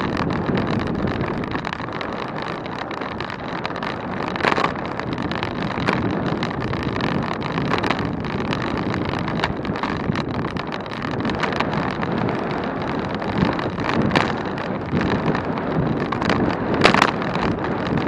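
Wind buffeting the microphone and steady road noise while riding a bicycle at speed, with a few short knocks, the loudest near the end.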